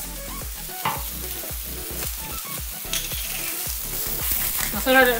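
Brussels sprouts and green beans sizzling in olive oil on a hot griddle, with frequent light knocks and scrapes of a utensil moving them around.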